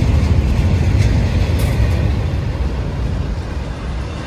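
Wind buffeting the microphone outdoors: a loud, steady rumble with a rushing hiss above it, easing slightly toward the end.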